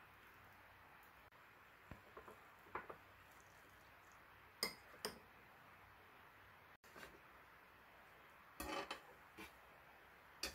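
A metal spoon clinking against a small ceramic bowl while mixing tuna with mayonnaise: a handful of light, scattered clinks and taps over quiet room tone, the loudest about halfway through and a quick cluster near the end.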